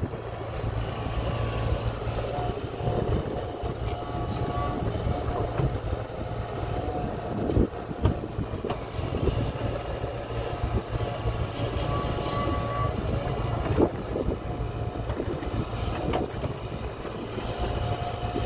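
Hitachi Zaxis 75 compact excavator's diesel engine running steadily, with a thin whine that comes and goes and a few short knocks as the bucket works a pile of wet black spoil.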